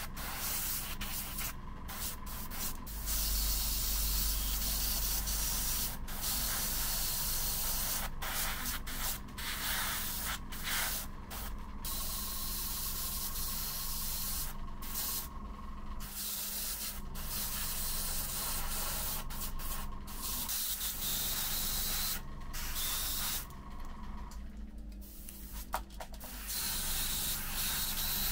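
Gravity-feed airbrush spraying paint: a steady hiss of air that cuts out and comes back many times as the trigger is let go and pressed again, with a steady low hum underneath.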